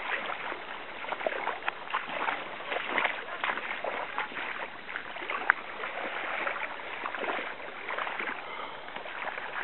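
Stream water running, with many small irregular splashes and one sharper splash or knock about five and a half seconds in.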